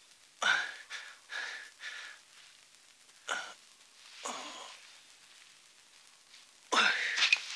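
A man's laboured, wheezing gasps and groans in about six short bursts, the loudest near the end.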